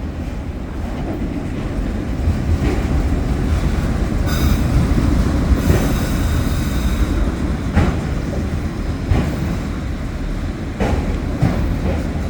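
A train rolling past: a steady rumble of wheels on rail with clacks over rail joints every second or two, and a high wheel squeal starting about four seconds in and lasting about three seconds.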